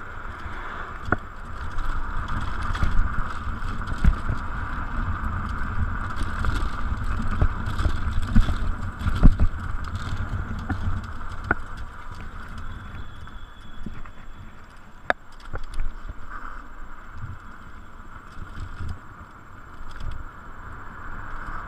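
Electric scooter being ridden at speed: steady wind and tyre rumble with a constant higher hum, heavier in the first half, and scattered sharp knocks as the scooter goes over bumps in the pavement and road.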